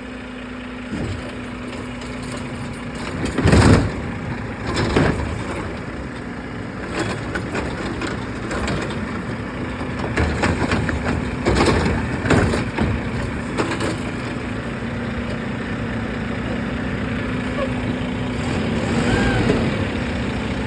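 Garbage truck engine running steadily, with a series of loud bangs and clatter as trash cans are handled and emptied. The loudest bang comes about three and a half seconds in, and a cluster follows around ten to thirteen seconds in.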